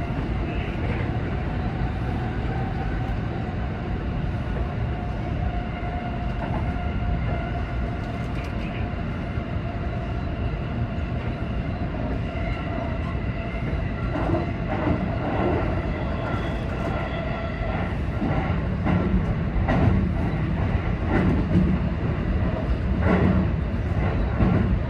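Seibu 20000 series electric commuter train running, heard from on board: a steady rumble with faint motor tones, and from about halfway in, a run of knocks and clacks as the wheels pass over the track.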